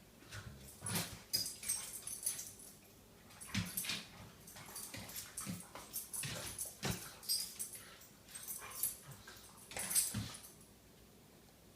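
Two dogs play-wrestling: short dog vocalisations and scuffling noises in irregular bursts. The loudest burst comes about ten seconds in, then it goes quiet near the end.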